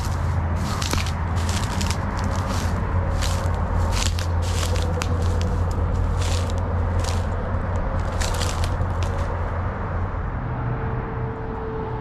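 Footsteps of a person walking, about two steps a second, over a steady low rumble; the steps stop near the end.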